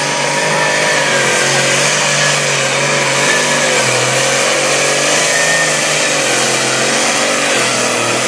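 Pulling tractor's engine running hard and steady under load as it drags a weight-transfer sled, its pitch wavering only slightly, with thick smoke pouring from the exhaust.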